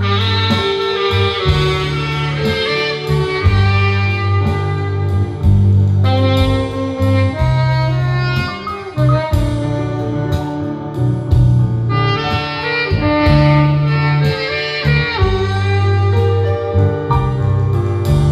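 Live band music: a saxophone plays the lead melody in long held notes over an electric bass line and a steady beat.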